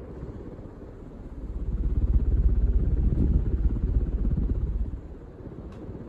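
1993 Casablanca Delta II ceiling fan running at speed, the draught from its spinning blades buffeting the microphone as a low, fluttering wind rumble. The rumble swells about a second and a half in and eases off near the end.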